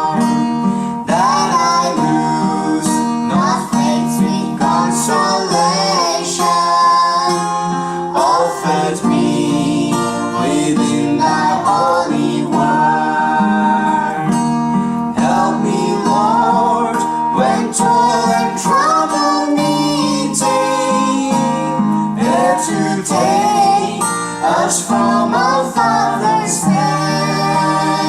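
A song sung to acoustic guitar accompaniment, with strummed chords under a singing voice.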